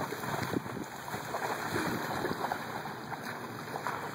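Running and wading through shallow flood water: a chocolate Labrador's legs and a man's feet splashing continuously, with irregular sharper splashes throughout.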